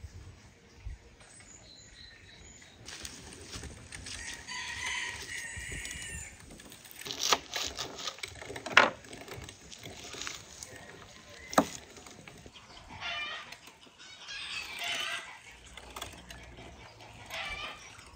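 Chickens clucking and a rooster crowing several times. Three sharp knocks, about seven, nine and twelve seconds in, are the loudest sounds.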